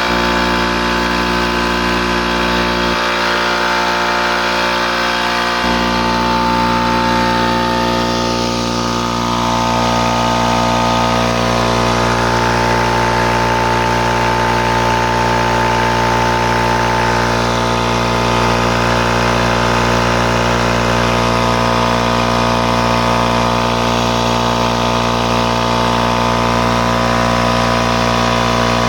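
A 5 hp, 20-gallon Charge Air air compressor running steadily with an even, unbroken machine drone, its tone shifting slightly about a third of the way through.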